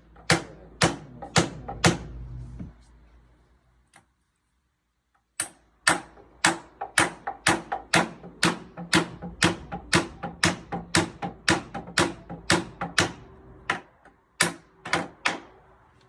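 Hammer blows on wood at an even pace of about two a second, each with a short ring. A few strokes are followed by a pause of a couple of seconds, then a long steady run of blows.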